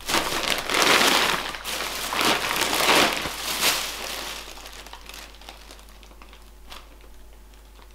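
Plastic carrier bags and packaging rustling and crinkling as shopping is unpacked. It is loudest over the first few seconds, then dies down to quieter, scattered rustles.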